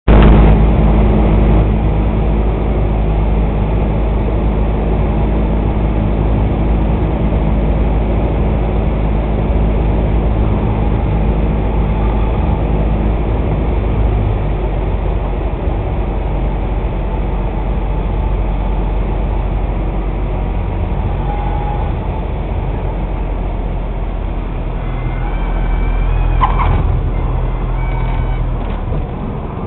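Cabin noise of a single-engine light plane's piston engine and propeller on approach and landing, heard from inside the cockpit. It is a loud, steady drone whose engine tone fades out about halfway through as power comes back for the landing. Near the end there is a louder stretch with a few short clicks.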